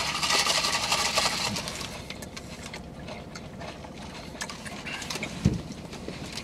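Eating sounds close to the microphone: chewing a sandwich and a sip through a drinking straw, with a hissy stretch in the first second or so and small clicks after, over a steady low hum.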